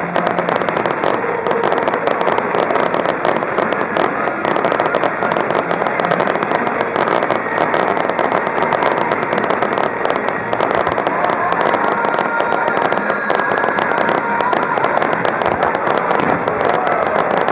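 Fireworks star mine barrage: a dense, continuous crackle of many small bursts overlapping, steady in loudness with no single bang standing out.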